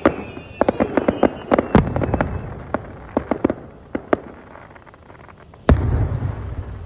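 Fireworks going off: a rapid string of sharp crackling pops through the first four seconds, then one big aerial-shell bang near the end followed by a low rumble.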